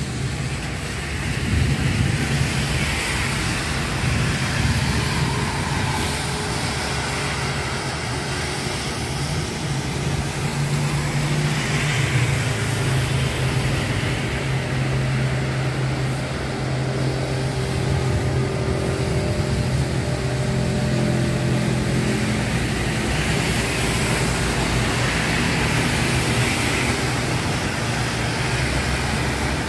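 Steady city traffic noise on wet roads: a continuous hiss with a low rumble, as vehicles pass one after another below, their sound swelling and fading every several seconds.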